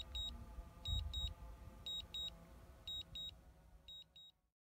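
DJI drone remote controller beeping in pairs of short high beeps about once a second, the alert it gives while the aircraft is returning to home, over a low rumble. The beeps grow fainter and the sound cuts off about four and a half seconds in.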